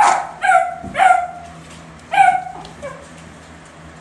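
Basset hound puppies barking at a rabbit: four short, high-pitched barks in the first two and a half seconds, then a weaker one near the three-second mark.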